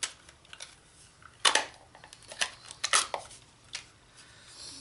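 Hand-held craft punch cutting a 1½-inch scalloped circle from cardstock: a series of sharp clicks and crunches, the loudest about a second and a half in and again about three seconds in, as the punch is pressed through the card and handled.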